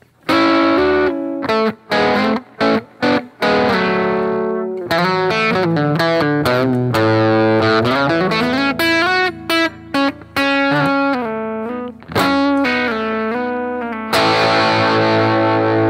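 A 2013 Rickenbacker 330 electric guitar with toaster pickups and flatwound strings, played as an overdriven lead solo through a Fender Deluxe amp simulator. Single-note phrases and quick runs come with a few short breaks, and the solo ends on a long held note about two seconds from the end.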